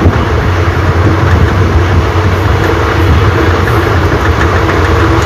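Indian Railways passenger coach running along the track, heard from inside the coach as a loud, steady rumble with a low hum.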